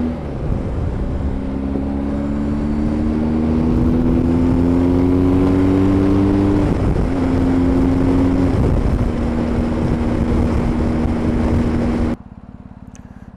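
BMW R 1250 GS Adventure's boxer twin running through an Akrapovič exhaust at motorway speed. The engine note rises slowly for several seconds, then drops back and holds steady, with wind rush over the helmet microphone. It cuts off abruptly near the end.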